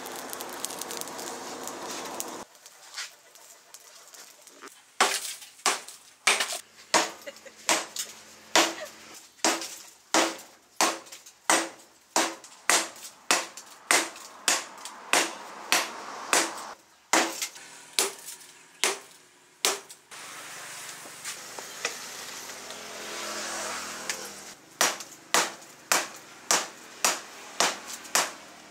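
Hand hammer striking red-hot steel rebar on a steel post anvil as the bar is forged out. The blows are sharp, ringing clangs at about one and a half a second, in long runs with short pauses. In the first couple of seconds there is only a steady rush from the charcoal forge fire.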